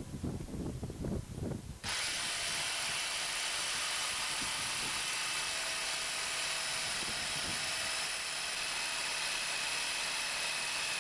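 Black + Decker 20V cordless jigsaw starting suddenly about two seconds in and then running steadily as it cuts through wood. A few low knocks come before it starts.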